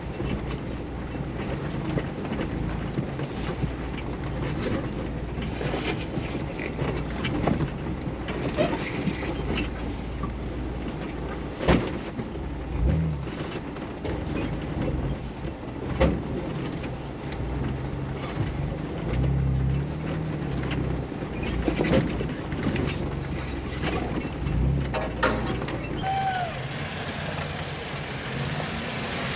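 Off-road 4x4's engine running at low speed and revving up and down in short surges while crawling over rock, with several sharp knocks along the way.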